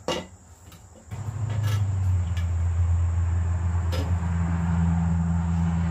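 A click, then about a second in a motor starts up and runs with a steady low hum.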